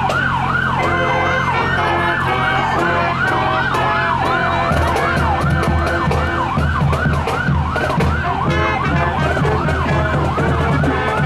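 An emergency vehicle siren sounds continuously on a fast yelp, its pitch sweeping up and down about two to three times a second. A marching band's wind instruments come in about a second in, and its drums join a little before halfway.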